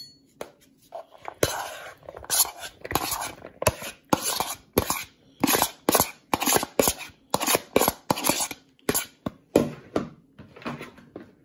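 A knife or metal utensil scraping and tapping chopped boiled egg and celery off a plastic cutting board into a mixing bowl: a run of irregular sharp clacks and scrapes, two or three a second, starting about a second in.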